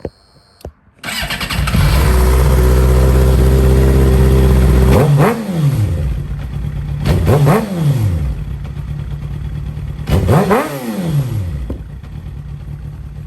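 Suzuki GSX-R inline-four sport-bike engine started, catching about a second in and settling into a steady fast idle, then blipped three times in quick rising-and-falling revs before dropping back to idle. The revs make the exhaust spit flames, which it is called a flamethrower for.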